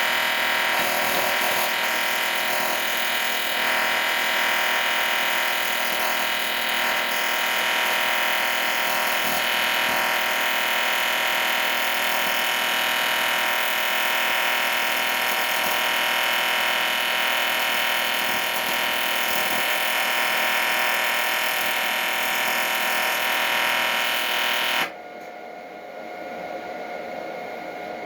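An electric power tool's motor running steadily with a high, even whine, cutting out about 25 seconds in and leaving a quieter steady hum.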